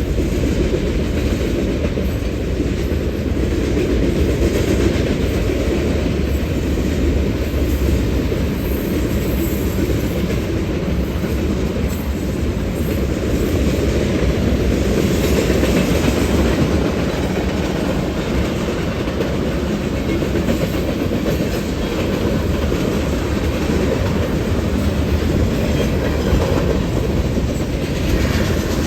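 Union Pacific manifest freight train rolling past: a steady, even noise of its cars' steel wheels running on the rails.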